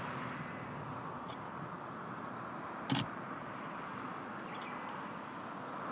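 Steady outdoor background rush with one short, sharp knock about three seconds in and a few faint ticks.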